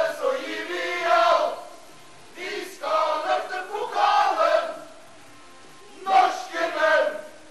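A group of men's voices singing together in short phrases, with pauses of about a second between them.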